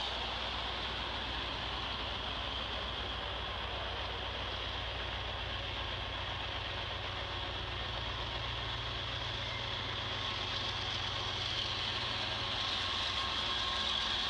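Diesel locomotives of an approaching freight train, heard through a webcam feed played back on a computer: a low steady engine hum under a constant hiss, getting a little louder near the end as the lead locomotive arrives.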